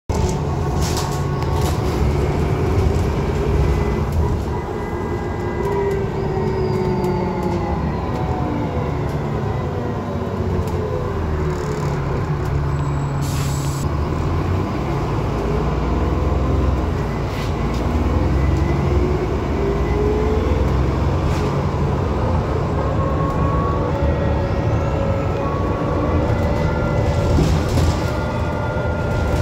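Transbus Trident double-decker bus heard from inside while under way, its diesel engine and driveline running hard with a heavy low rumble. A whine rises and falls in pitch as the bus speeds up and slows. Body panels rattle and click, and a short hiss of air from the air brakes comes about thirteen seconds in.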